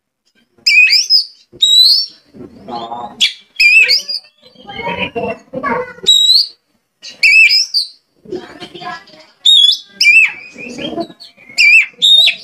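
Oriental magpie-robin singing loudly: sharp whistled notes that glide up and down, repeated about once a second, alternating with harsher, lower chattering phrases.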